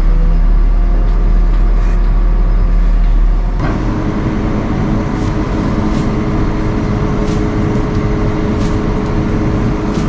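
JCB 3CX Stage V backhoe loader's diesel engine running steadily, heard from inside the cab while the backhoe arm is worked on the joysticks. A little over three seconds in, a deep hum stops and the engine note shifts slightly, with faint light clicks after.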